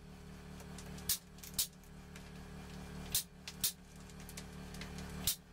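Bubble wrap squeezed under a hydraulic press, its air bubbles bursting with five sharp pops that come in pairs about half a second apart, over the steady hum of the press's pump.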